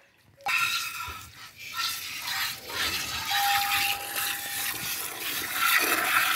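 Milk squirting from a cow's teat into a steel bucket as the cow is milked by hand, starting suddenly about half a second in.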